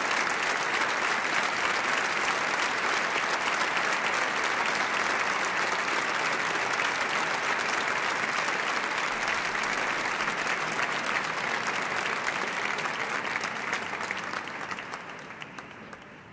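Audience applauding, a dense, even patter of hand claps that fades away over the last couple of seconds.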